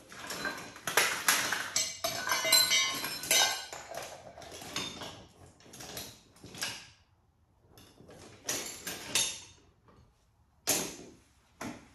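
Small hard parts being rummaged through and handled: clinks, clacks and rattles in a dense run for the first few seconds, then scattered short bursts.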